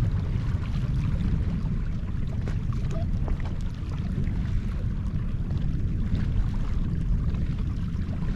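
Small boat on open water: steady low wind rumble on the microphone with water splashing lightly around the hull.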